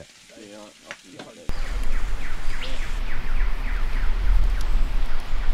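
A steady low outdoor rumble with a bird calling over it, a run of quick falling notes repeated several times, starting abruptly at a cut about a second and a half in.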